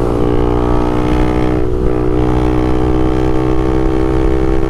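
Honda CBX 250 Twister's single-cylinder four-stroke engine running steadily under way, heard on board, with its air intake hose removed.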